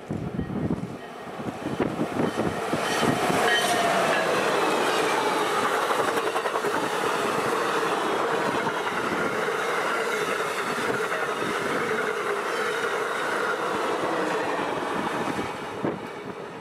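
Amtrak passenger train behind an electric locomotive passing close at speed. A rush of noise starts suddenly and builds within a few seconds, with tones that fall in pitch as the locomotive goes by. Then comes the steady noise of wheels on rail and clattering coaches, which fades near the end as the train pulls away.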